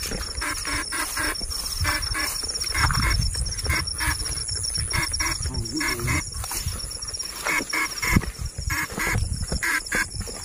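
Frogs croaking in short calls repeated over and over, with a steady pulsing high insect trill behind them. Low thuds of footsteps on wet grass come and go.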